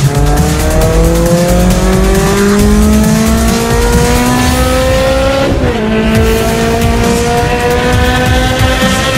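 Ferrari engine heard from inside the cabin under hard acceleration, its pitch climbing steadily. About five and a half seconds in there is a quick upshift, a sudden drop in pitch, and then the engine pulls and climbs again.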